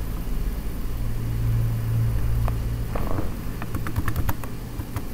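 Computer keyboard typing: scattered key clicks over the last couple of seconds as a short terminal command is entered. Under it runs a steady low hum that is loudest a second or two in.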